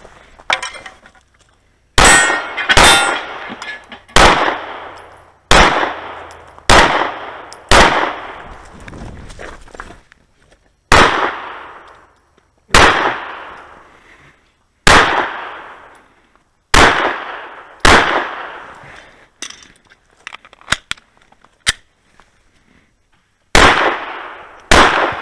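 About thirteen semi-automatic pistol shots, each sharp and followed by a fading echo. They come one to two seconds apart, often in close pairs, and break off for several seconds before the last two near the end.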